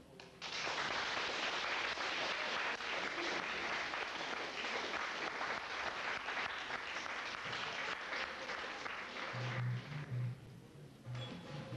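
Audience applauding, a dense patter of many hands that starts just after the music ends and dies away about nine seconds in.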